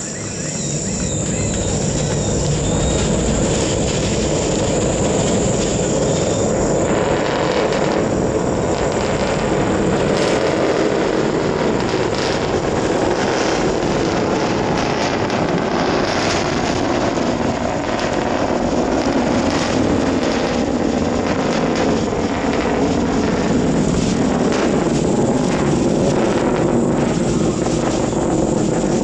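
PSLV rocket's solid-fuel first stage heard during liftoff: a loud, deep rumble full of crackling that swells up over the first couple of seconds, then holds steady. Crickets chirp faintly behind it at first and again near the end.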